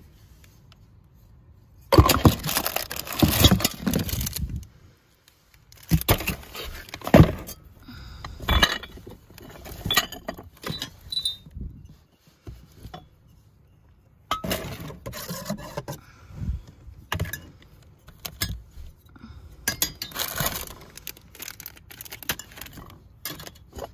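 Metal cookie cutters jangling and clinking together as they are handled, then scattered clinks, knocks and rattles as ceramic, glass and plastic-wrapped items are moved about in a cardboard box.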